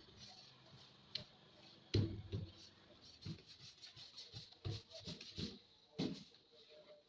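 Irregular scratching and tapping of paper being cut and trimmed on a speaker box, with one sharper knock about two seconds in.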